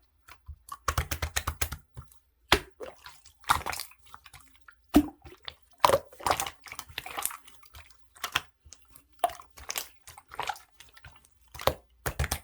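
Clear slime being squeezed and worked by hand, making irregular wet clicks and pops, with quick runs of clicking about a second in and again near the end.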